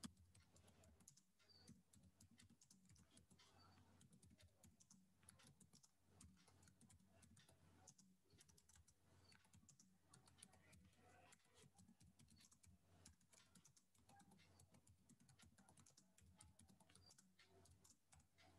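Faint computer keyboard typing: a run of irregular keystrokes as a line of text is typed out.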